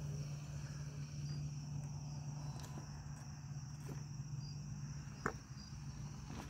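Radio-controlled scale rock crawler's electric motor and gearbox humming at low speed as it crawls over the concrete obstacle, easing off near the end. Crickets chirp steadily throughout, and there is a single sharp click about five seconds in.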